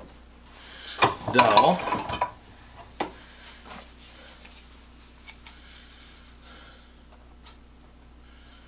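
Small clicks and knocks from a yellow wood-glue bottle and a dowel being handled at a workbench. The sharpest are right at the start and about three seconds in, then only a few faint ticks.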